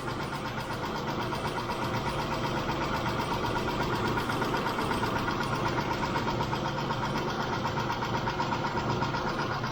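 A Mitsubishi 6G72 3.0-litre V6 running with a steady, fast ticking from its hydraulic valve lifters. A Liqui Moly lifter additive has not cured the tick, and the owner takes the lifters to be worn out.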